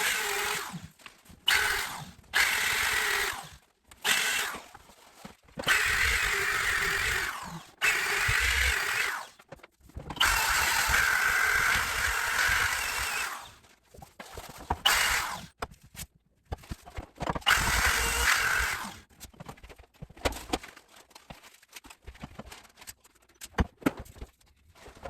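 Electric sander running on a wooden butcher-block countertop in repeated bursts of half a second to three seconds, switching on and off with a steady hum. In the last few seconds only scattered light clicks and knocks remain.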